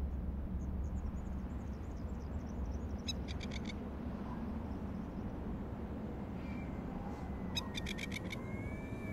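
Steady low rumble of wind on the microphone. A bird calls over it in two short runs of rapid high chirps, about three seconds in and again near the end.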